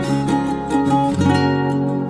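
Background music led by a plucked string instrument, notes picked out one after another.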